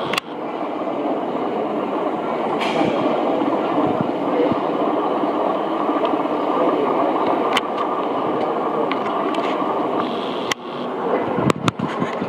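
Steady hubbub of many voices in a busy indoor show hall, with a few sharp clicks near the end.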